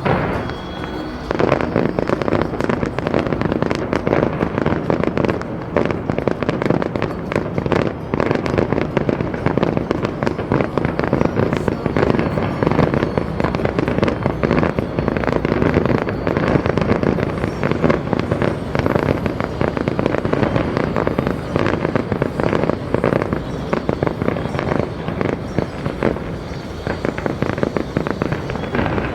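Fireworks display: a dense, continuous barrage of bangs and crackling aerial shells going off in quick succession, swelling to full intensity about a second in.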